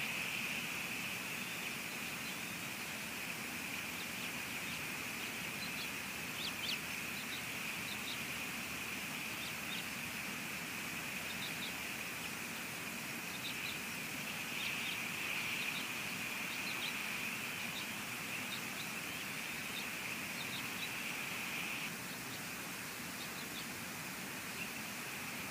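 Steady hiss of rain, with short, high bird chirps scattered through it in a few loose runs.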